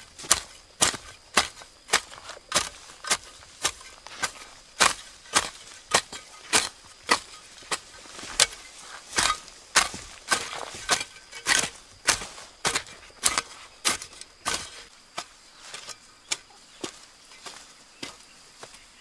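A metal garden hoe chopping into soil and weeds, one sharp strike after another at about two a second, as a weedy vegetable bed is dug over.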